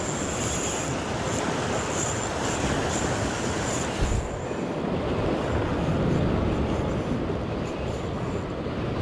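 Steady rush of wind and surf on the shore, with a thin high whine through the first four seconds or so.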